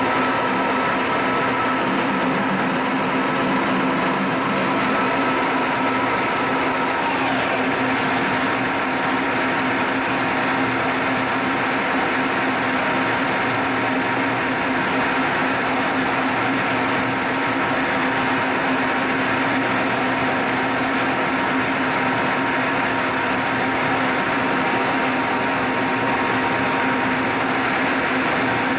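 Milling machine running with a steady mechanical hum. A high whine falls in pitch and stops about seven seconds in, while the rest of the running noise carries on.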